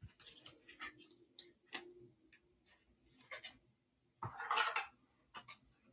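Trading cards being handled on a table: soft clicks and rustles as the cards are shuffled and slid against each other, with one louder, longer rustle about four seconds in.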